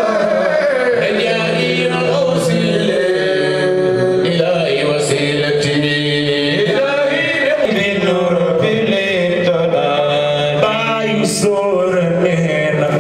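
Men's voices singing a religious chant: a male lead voice carries the melody while a group of men behind him sing long held notes.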